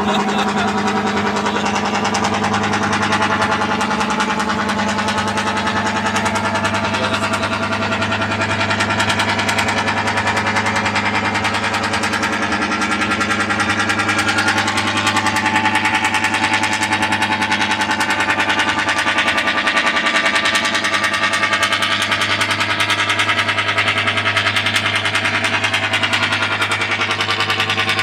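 Fishing boat engine running steadily at constant speed, a fast even knocking beat over a low hum.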